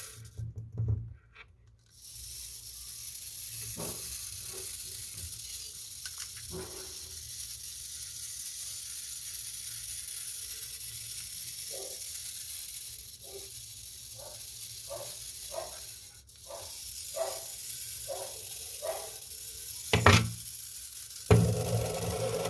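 Small metal clicks and taps from an alarm clock's movement being worked by hand as its mainspring is fitted into place, over a steady hiss. In the second half a run of evenly spaced clicks comes about twice a second, and a louder click follows near the end.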